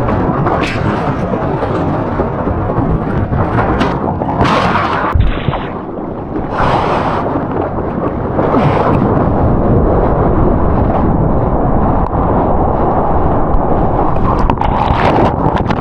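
Heavy shorebreak waves crashing and churning whitewater, a loud continuous rush with several sudden surges, heard close up from in the water.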